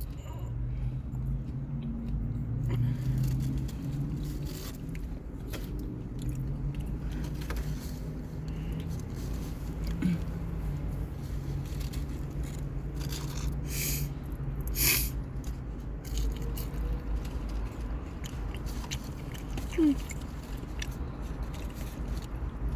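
Food packaging and a sandwich being handled: scattered rustling, scraping and light clicks, a few louder near the middle, over a steady low hum.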